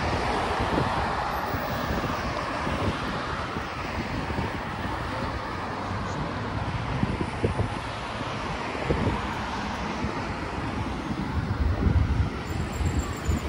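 Steady city road traffic: cars and trams passing on a busy street, with a low rumble building near the end as a vehicle comes close.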